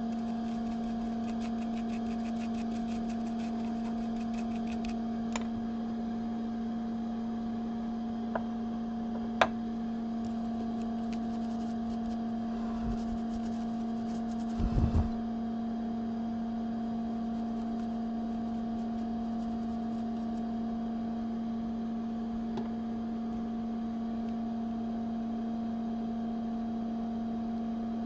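Steady electrical hum from bench repair equipment, with a few light clicks of hand tools and a short clatter of knocks about halfway through.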